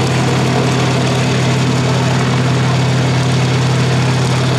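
PZL-Świdnik Mi-2 helicopter in flight overhead, its twin turboshaft engines and main rotor making a loud, steady drone.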